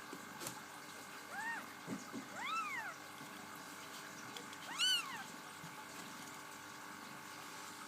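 Bengal kittens meowing: three short, high meows that rise and fall in pitch, the last and loudest about five seconds in, over a steady background hum.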